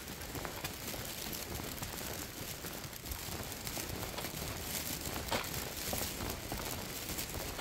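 Footsteps climbing stone steps, with irregular crackly rustling close to the microphone over a steady hiss. One sharper click comes a little past the middle.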